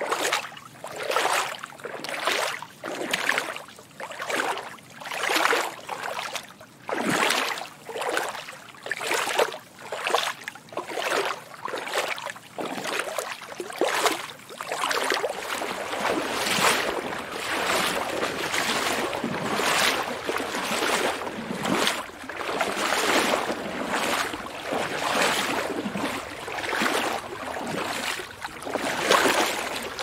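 Footsteps wading through water, each stride a splashing swish about once a second. About halfway through the splashes come faster and run together into a more continuous sloshing.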